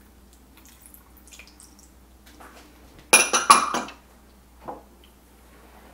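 Soy sauce trickling faintly into a slow cooker crock, then a small dish set down about three seconds in, clinking and ringing against the other dishes, with one lighter knock a second later.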